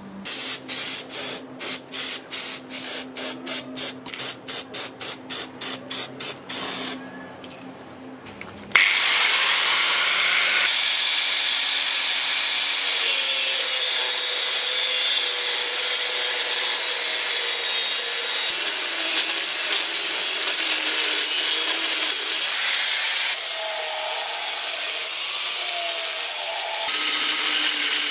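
Metalworking in a knife-making shop: first a run of evenly spaced strokes, about three a second, for some seven seconds, then about nine seconds in a power tool starts up and runs steadily on the steel, with a wavering whine over a loud rushing noise.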